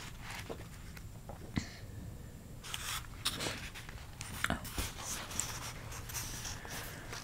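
Pages of a book being leafed through close to the microphone: a few sharp page clicks, then a longer stretch of busy paper rustling and flipping from about three seconds in.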